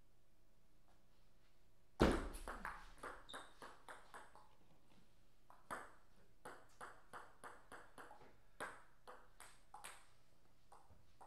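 Table tennis ball clicking: a sharp loud hit about two seconds in, followed by a fading run of quick bounces. From about six seconds on there are lighter, evenly spaced bounces, about three a second.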